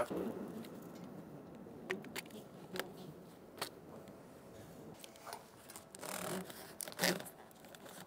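Scattered small clicks and scrapes of hand work on the piping, with a low rustle in the first second and a sharper click about seven seconds in.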